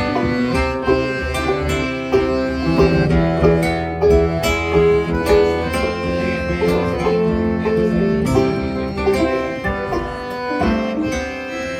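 Accordion, five-string banjo and acoustic guitar playing a folk instrumental together in a steady rhythm, the accordion holding sustained notes over the plucked strings.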